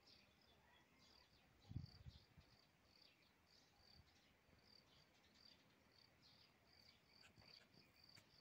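Faint insect chirping: short, high chirps repeating about two or three times a second, with a low thump just under two seconds in.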